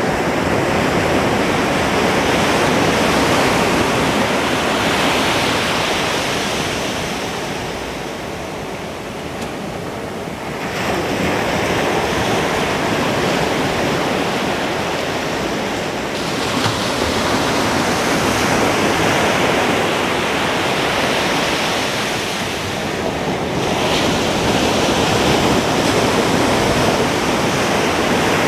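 Ocean surf breaking on a beach, a continuous rushing wash that swells and ebbs as the waves come in, easing off briefly about nine seconds in and again near the end.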